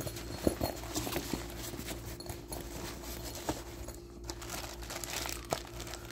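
Handling of a fabric zippered tool case and its plastic-bagged contents: scattered light knocks, clicks and rustling as the lid is folded open and the items are moved. A steady low hum runs underneath.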